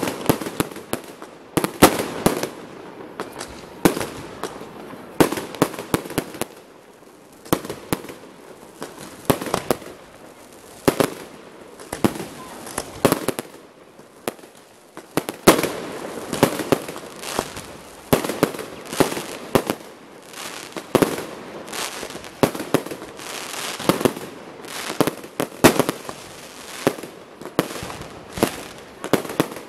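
Aerial fireworks display: shells bursting one after another in an irregular series of sharp bangs, some coming in quick clusters.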